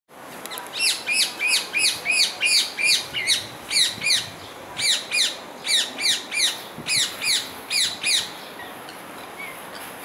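Rose-ringed parakeet calling: a long series of about two dozen high, downward-sweeping calls, about three a second, with a brief pause partway through, stopping about two seconds before the end.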